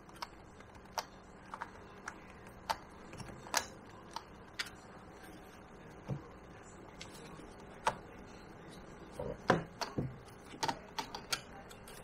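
Small, irregular metallic clicks and rattles of a mini chainsaw's chain links against the guide bar and drive sprocket as the chain is seated by hand in the bar groove, with a quicker cluster of clicks about nine to eleven seconds in.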